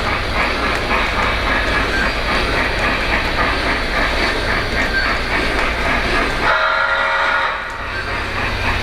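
Lionel O-gauge Polar Express model train running steadily along the track with a continuous rumble and clatter. About a second and a half before the end its whistle sounds once, for about a second.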